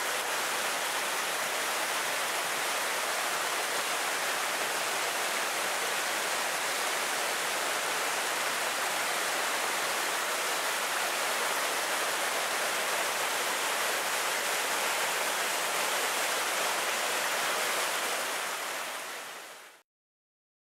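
Waterfall with a steady rush of falling water, fading out and stopping just before the end.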